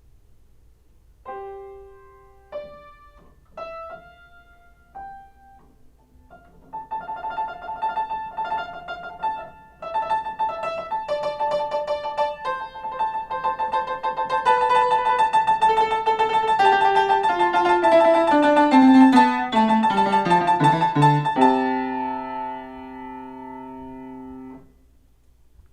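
Piano music: a few spaced notes, then quick repeated notes building up over a stepwise falling bass line, ending on a held chord that stops suddenly near the end.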